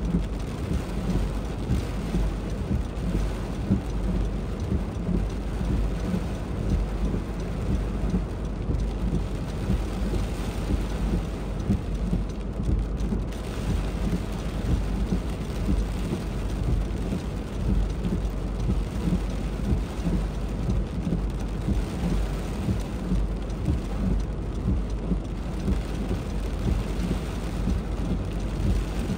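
Heavy thunderstorm rain pouring steadily, with a constant deep rumble underneath and no break or single loud clap.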